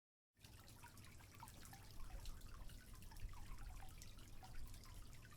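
Coffee trickling and dripping, with many small liquid plinks over a low hum; it starts abruptly about a third of a second in.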